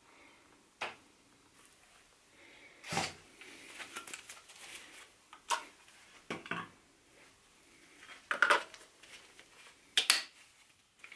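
Hard plastic clicks and knocks of cordless tool batteries being pulled out of and slid into Milwaukee M12 stubby impact wrenches, about six separate strokes, with the loudest, sharp clicks near the end as a battery goes in.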